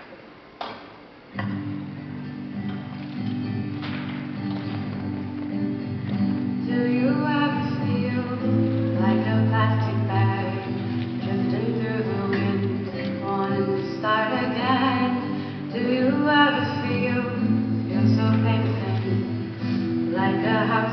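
Acoustic guitar playing begins about a second and a half in, and a voice starts singing along about six seconds in: a solo singer accompanying themself on guitar.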